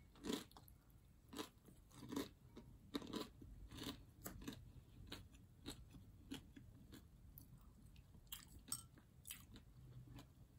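Faint chewing of a mouthful of food, eaten by hand, with short irregular mouth clicks about every half second.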